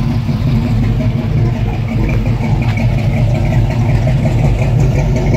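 A car engine running steadily at low revs as the car is reversed slowly up onto a car-hauler trailer.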